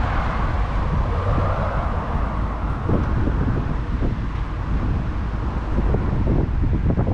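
Strong wind buffeting the microphone, a loud low rumble that stays steady throughout.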